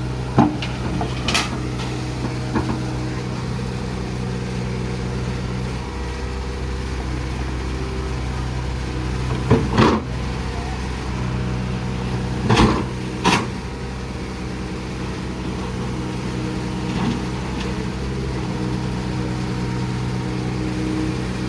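Heavy diesel engine running steadily, with a few sharp metallic clanks, the loudest around ten seconds and twice around thirteen seconds in.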